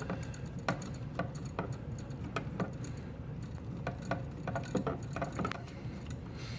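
Light, irregular clicks and taps from a screwdriver and small screws being handled while working on a wall outlet, several a second at most, with a low steady hum beneath.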